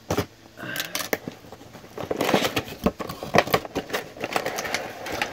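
Scissors snipping through toy-box packaging with a few sharp clicks, then a stretch of crackling and rustling plastic and cardboard as the box is handled.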